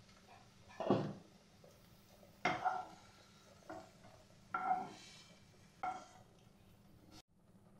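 Wooden spatula scraping fried pineapple out of a non-stick frying pan into a small bowl. About five short knocks and clinks of the spatula against the pan and bowl, roughly a second apart.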